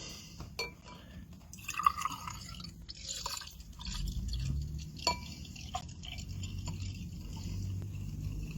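Cola being poured into a drinking glass: a few light clicks and knocks, then the soda running and dripping into the glass.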